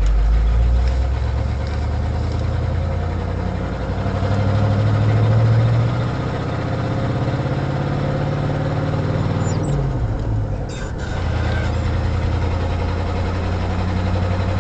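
Truck engine and exhaust running steadily while driving. Its note climbs gradually over the first few seconds, dips briefly about ten seconds in, then settles again.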